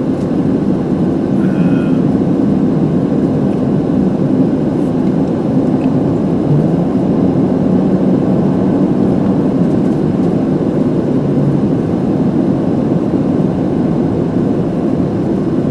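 Steady road and engine noise inside a car's cabin while it drives along, an even rumble with no change in loudness.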